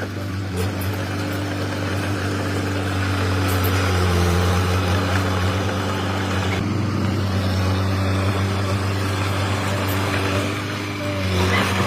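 Komatsu D21P mini bulldozer's diesel engine running steadily, easing off briefly near the end and then picking up again.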